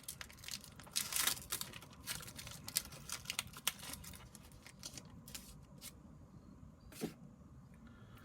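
Pokémon card packaging being handled and worked open by hand: irregular rustling, crinkling and small clicks of plastic and foil wrapping, with a sharper click near the end.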